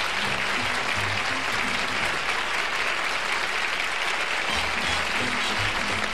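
Studio audience and panel applauding steadily, with music playing underneath.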